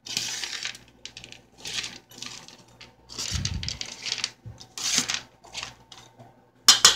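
Dry kibble and scrambled egg being stirred in a metal pan: irregular scraping and rattling strokes, with two louder clanks near the end.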